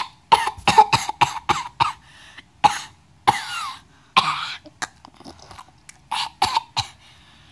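A child's voice making mock eating noises for a plush toy gobbling another toy: a quick run of short cough-like grunts and gulps, two longer breathy noises in the middle, and a few more grunts near the end.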